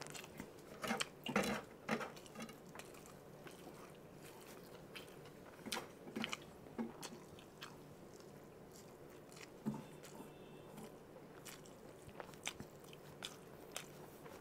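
A man chewing a big hand-fed mouthful of spicy black bean noodles mixed with mutton biryani, with faint, irregular wet chewing and mouth sounds. The sounds are a little louder in a few spots, about a second or two in and around six and ten seconds.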